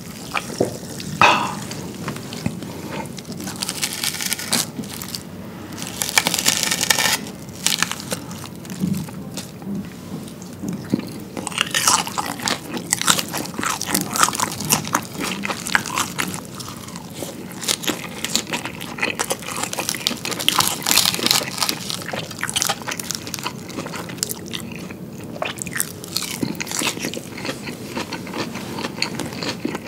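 Close-miked eating: repeated crunchy bites and chewing of fried chicken, fries and salad, coming in irregular clusters of crackling.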